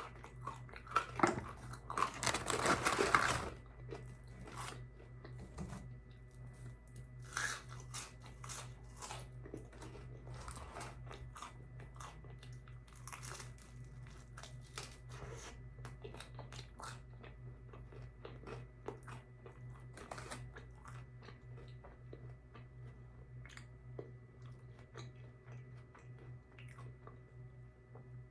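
A person biting and chewing crispy fried food close to the microphone, with a loud spell of crunching in the first few seconds and then scattered smaller crunches, over a steady low hum.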